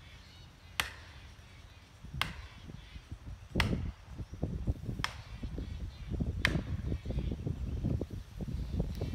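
Five sharp strikes about a second and a half apart: a hammer driving felling wedges into the back cut of a dead tree to tip it over.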